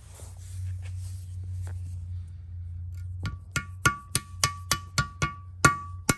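Hammer blows on a steel driver block, tapping a bearing shell coated in red thread locker into its bore in a John Deere engine housing. About ten sharp, ringing metallic strikes, roughly three a second, begin about three seconds in.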